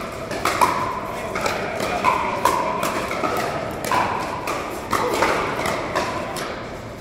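Pickleball paddles hitting a hard plastic ball in fast volley exchanges, a quick irregular run of sharp pops, each with a brief ring, echoing in a large indoor hall, with hits from neighbouring courts mixed in.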